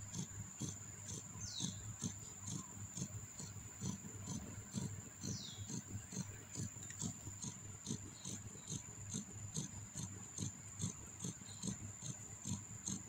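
Newborn kittens suckling at their mother: soft, rhythmic sucking clicks, about three a second, with a faint steady high whine behind.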